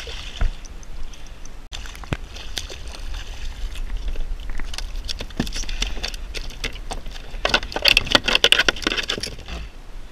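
Water splashing and irregular clicks and knocks at a fishing kayak as a bluefish is brought in and handled, busiest and loudest about eight seconds in, over a low steady rumble.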